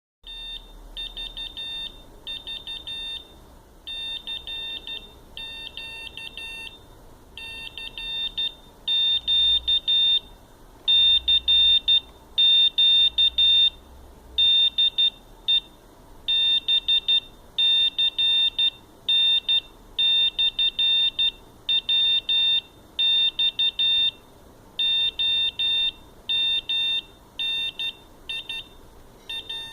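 Arduino Uno Morse code (CW) beacon beeping a single high-pitched tone in dots and dashes, grouped into letters with short gaps between them; louder from about eight seconds in.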